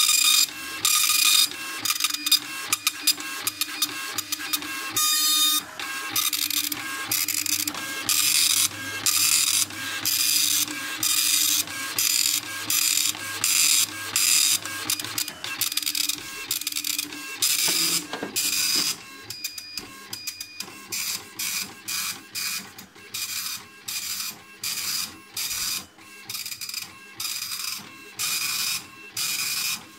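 Panasonic KX-P1694 dot-matrix printer printing, its print head rasping across the paper in short passes one after another. A brief rising whine sounds a little past halfway, and after it the passes come shorter and about one a second.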